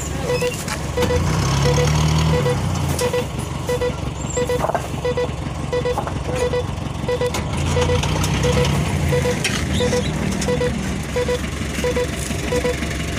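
A vehicle engine running with a low rumble that swells twice, over a faint double beep repeating steadily about every 0.7 seconds.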